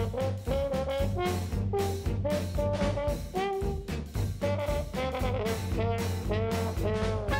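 Swing-style jazz background music with a brass lead playing a melody over a steady beat.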